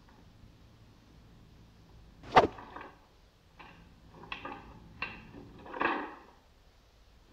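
Nunchaku sound effects: one sharp crack about two seconds in, followed by four quick swishes through the air.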